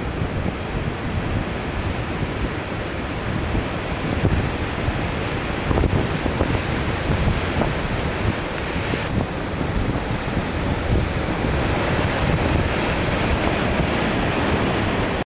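Rough sea surf breaking and churning steadily, with wind rumbling on the microphone. The sound cuts off suddenly near the end.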